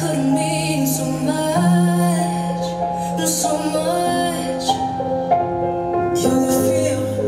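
Slow hustle dance music: a slow song with a singer over long held bass notes, played over the hall's sound system and picked up from the room rather than from the mixing desk.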